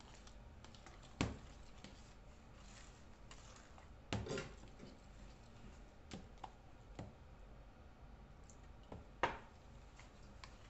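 A fork clicking and knocking against a mixing bowl as batter is stirred by hand: a handful of short, sharp knocks at uneven intervals over a faint steady low hum.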